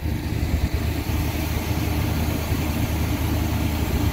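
1974 Chevy C30 wrecker's 350 V8 idling steadily, just brought back to running after sitting about five years.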